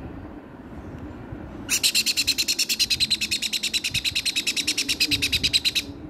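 Nestling parrot chick giving a fast, rasping begging call, about ten pulses a second, as a finger touches its beak. It starts about two seconds in, runs for roughly four seconds and stops abruptly.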